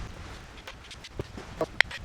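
A few light clicks and clinks of metal parts being handled on an opened-up automotive AC compressor, spaced irregularly, the sharpest near the end, over a faint hiss.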